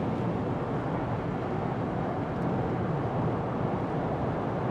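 Steady road noise inside a Ford car's cabin while it cruises on a freeway.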